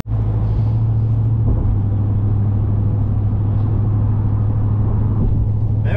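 Steady low drone of a car on the road, with an even rumble of road noise and no other event standing out.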